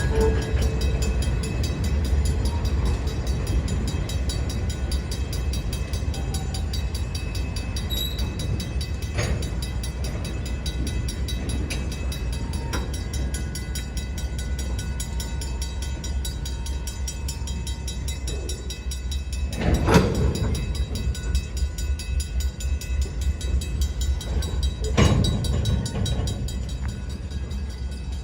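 Union Pacific freight train rolling past at a crossing: a steady low rumble of wheels on rail, with occasional sharp clanks and two louder clanks about two-thirds of the way through and near the end.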